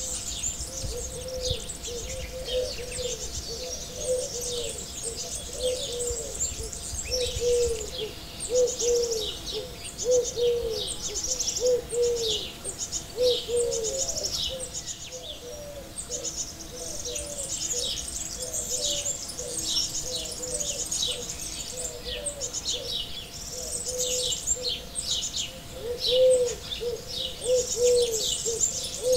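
Birds singing: a dense, continuous run of quick, high, falling chirps from small birds, with a low, short hooting call repeated over and over beneath them.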